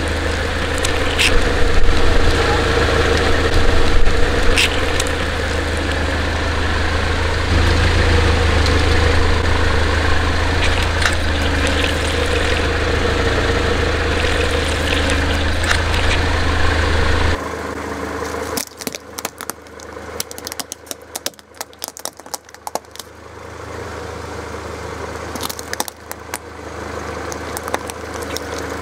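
Car engine running steadily at low revs, with a few sharp cracks, as objects are crushed under a tyre. A little over halfway through the engine sound drops off suddenly, and a long run of crackling and clicking follows over a much fainter engine hum.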